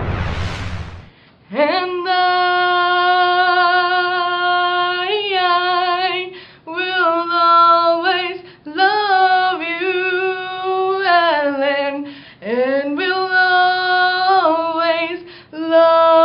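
A young woman singing solo without accompaniment: long held notes that waver slightly, sliding up and down between pitches, in phrases broken by short breaths. A short rising whoosh comes just before her first note.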